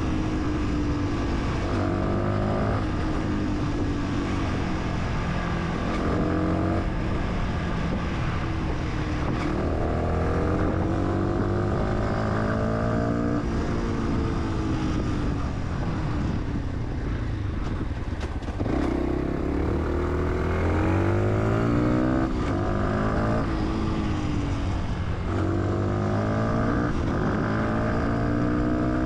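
Fantic 125 supermoto engine accelerating repeatedly. Its pitch rises, then dips briefly at each gear change. About halfway through it eases off for a few seconds, then pulls up through the gears again.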